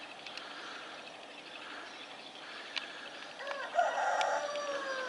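A rooster crowing once: a single long call starting about three and a half seconds in, its pitch falling as it ends.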